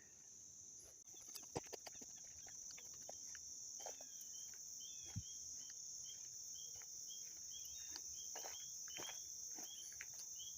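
A steady high-pitched insect chorus of crickets, with an unfamiliar bird repeating short chirping calls roughly twice a second from about four seconds in, and a few light footsteps.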